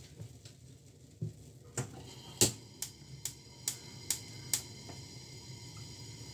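Metal spoon clinking against the mixing bowl while stirring lumps out of a glutinous rice flour and coconut milk batter: a run of about eight sharp clinks, two or so a second, the loudest about two and a half seconds in.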